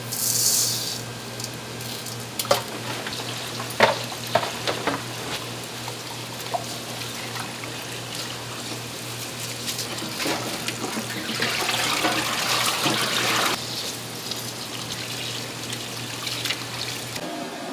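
Rice being washed in a stainless steel colander: dry grains poured in with a short hiss at the start, a few knocks against the metal, then tap water running onto the rice, loudest for a few seconds past the middle, and hands swishing the grains in the water. A steady low hum sits under it all.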